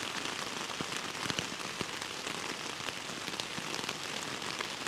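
Steady rain falling on a tent, heard from inside the tent: an even hiss with many separate drops striking sharply.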